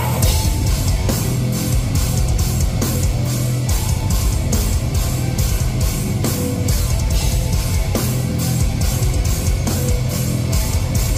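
Live heavy metal band playing: distorted electric guitars and bass over drums, with cymbals struck on a steady beat about three times a second. No vocals.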